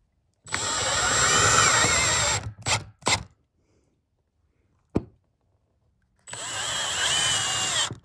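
Power drill driving rubber-washered roofing screws through corrugated steel panels, in two runs of about two seconds each, with a steady high motor whine. Two short bursts follow the first run, and there is a single sharp click midway.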